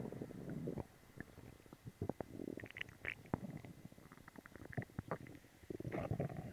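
Human stomach and intestines gurgling and rumbling after a laxative. A louder gurgle at the start gives way to irregular small pops and bubbling with a few brief higher squeaks in the middle, and another louder gurgle comes near the end.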